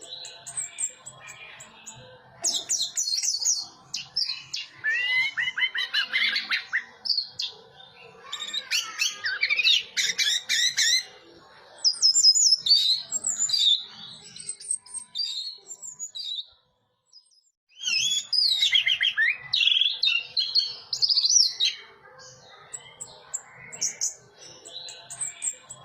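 Orange-headed thrush (anis merah) singing in bursts of fast, varied whistled phrases and rising and falling sweeps. The song breaks off completely for about a second around the middle.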